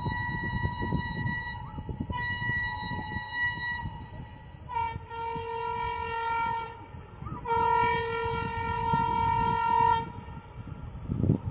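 Locomotive horn sounding repeatedly as a train approaches: two long single-note blasts, then two longer, fuller blasts with a lower note added, the last ending about ten seconds in. Under the horn is a low rumbling noise.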